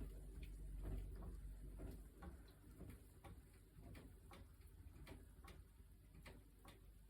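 Faint sounds of a GE top-load washing machine at the end of its cycle: a low hum that fades out about two seconds in, and soft, irregular ticks.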